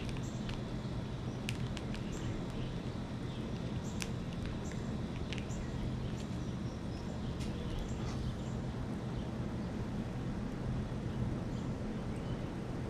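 Outdoor feeder ambience: short, scattered bird chirps and a few sharp clicks over a steady low background rumble.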